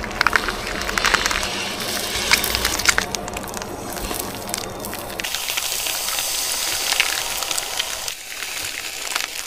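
Hot metal blade melting into a red lipstick, the wax sizzling and crackling with many small sharp pops.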